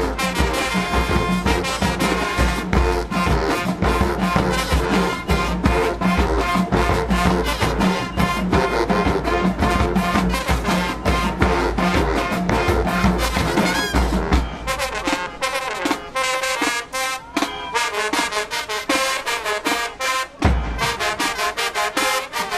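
High school marching band playing, with brass and drums over a heavy low end. About two-thirds of the way through the low end drops away and the music thins to higher brass lines punctuated by sharp drum hits.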